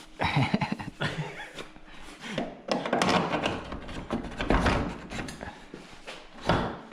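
Irregular knocks, scrapes and rustles of hands working metal parts on a motorcycle, as an axle is set in and pushed into place.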